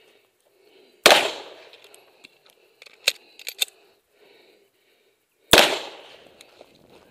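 Two handgun shots fired by the shooter, about four and a half seconds apart, each with a trailing echo. A few shorter, fainter sharp clicks fall between them.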